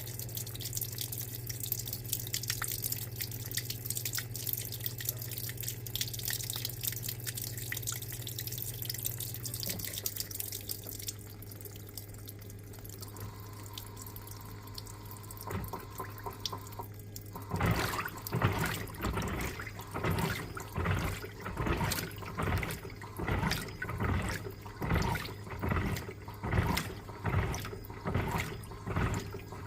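Electrolux LTA15 top-loading washing machine: water runs in with a steady hiss for the first ten seconds or so, then the filling stops. About seven seconds later the agitator starts and sloshes the wash water back and forth in an even rhythm, about three strokes every two seconds.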